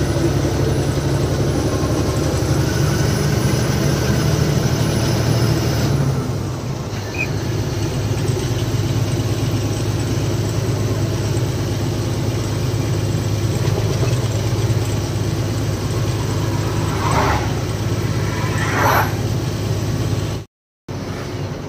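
Ashok Leyland goods truck's diesel engine running steadily on the road, with a low steady hum. Two brief higher-pitched sounds come a few seconds before the end.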